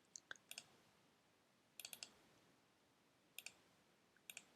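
Faint clicks of a computer keyboard or mouse at a desk, in small groups: a few near the start, a quick run of four about two seconds in, and two close pairs near the end.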